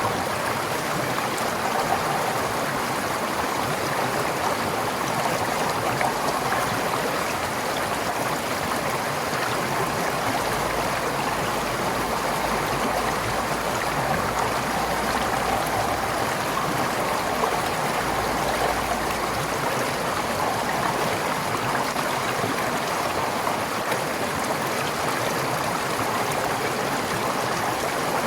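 Forest stream flowing steadily over rocks, a constant rushing and gurgling of water.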